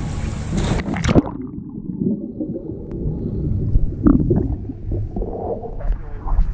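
A diver entering the pool with a splash about a second in, then muffled underwater bubbling and gurgling as the microphone goes below the surface, with the brighter water sound coming back near the end as it surfaces.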